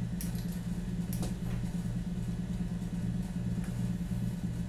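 A steady low hum, with a few light clicks and knocks from things being handled.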